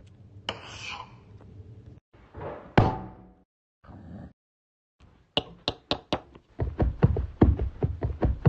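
A few separate rustling or scraping sounds with one sharp hit, then a run of sharp knocks that start sparse and quicken to about three or four a second.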